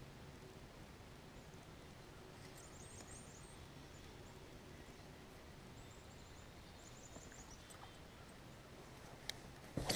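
Faint outdoor river ambience with a small bird's high, rapid trill heard twice. A sharp knock sounds just before the end.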